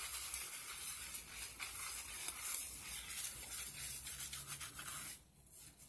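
Hands scrubbing shampoo lather through hair close to the microphone: a steady scratchy rubbing that stops briefly near the end.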